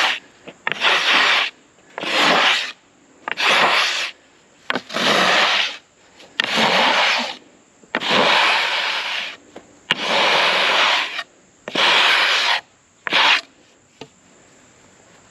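A series of about nine rubbing, scraping strokes across wood, one every second and a half or so, each lasting about a second, ending with a short stroke about thirteen seconds in.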